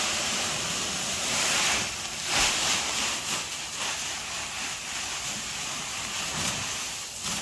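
Pig feed poured from a sack into a feeder: a steady rushing hiss of pellets, with a couple of brief knocks.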